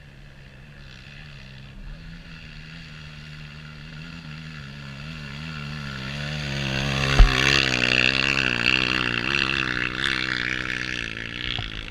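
Off-road dirt bike engine revving as it comes closer, its pitch rising and falling with the throttle, loudest about seven seconds in and then easing off. A single sharp knock sounds just before the peak.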